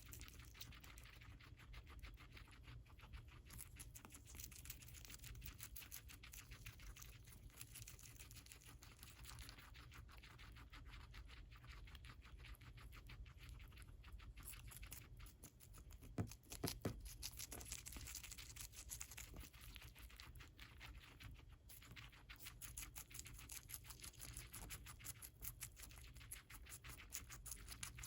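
Guinea pig chewing lettuce: faint, rapid crisp crunching and tearing, with a couple of louder clicks a little past halfway.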